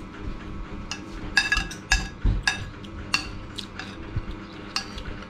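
Metal spoons clinking and scraping against ceramic plates and bowls during a meal: several sharp, ringing clinks spread through the middle seconds.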